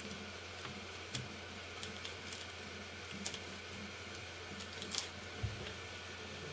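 Pieces of tape being pressed down onto the corners of a paper sheet on a CNC router bed: light crinkling of tape and paper with a few sharp clicks, over a faint steady hum.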